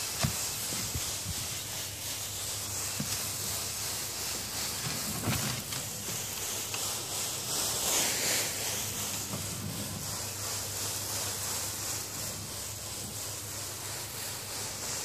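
Low-pressure softwash spray of roof-cleaning solution hissing steadily onto barrel roof tiles, swelling briefly about halfway through, with a steady low hum underneath.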